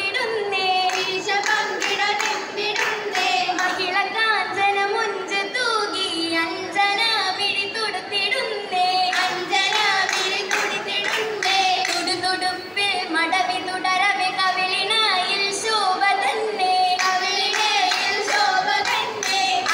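Oppana: a group of girls singing a Mappila song in unison, with steady rhythmic hand-clapping.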